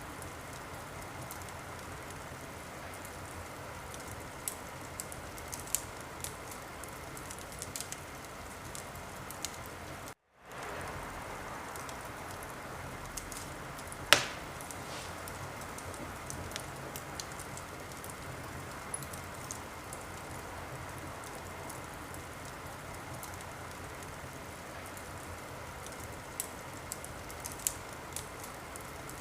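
Wood fire crackling in a fireplace: a steady hiss with scattered small crackles and one loud pop about fourteen seconds in. The sound drops out for a fraction of a second about ten seconds in.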